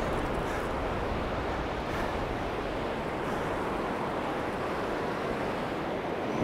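Wind buffeting the microphone over the steady hiss of surf breaking on the shore. The sound is an even, unbroken noise with a restless low rumble.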